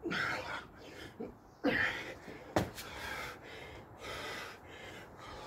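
Hard, heavy breathing of a man exhausted from a long burpee workout: a run of loud gasping breaths in and out. A single sharp thud comes about two and a half seconds in.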